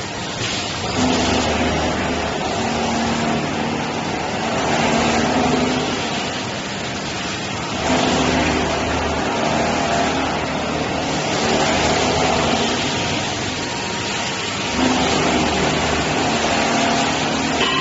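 CNC machine running while machining an aluminium extrusion die: a steady machining noise with a low hum that comes and goes in stretches of a few seconds.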